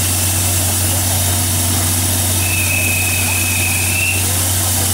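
Steam locomotive C11 207 standing with steam up: a steady hiss and a constant low hum. A thin high tone sounds for about two seconds around the middle.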